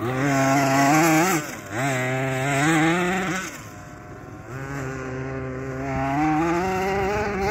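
Radio-controlled off-road buggy's motor revving as it is driven hard over dirt: the pitch climbs and drops back twice, eases off briefly about four seconds in, then climbs steadily again.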